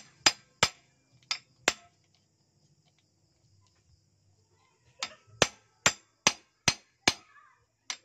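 Hammer tapping on metal engine parts. There are four sharp taps in the first two seconds, a pause, then a steady run of about six taps from about five seconds in.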